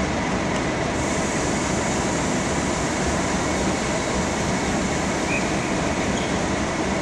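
Steady rumble and hum of a train standing at a station platform, with a faint steady whine over it and no change throughout.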